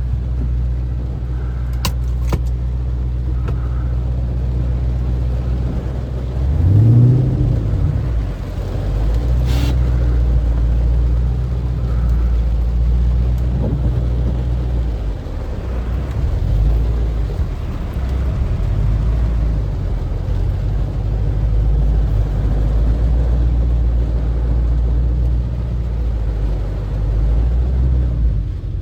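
Car engine running at idle, revved once briefly about seven seconds in, with a couple of sharp clicks near the start and about ten seconds in.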